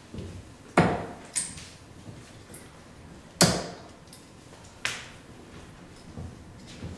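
Darts striking a Winmau Blade 6 bristle dartboard: a few sharp thuds a second or two apart, the loudest about a second in and about three and a half seconds in.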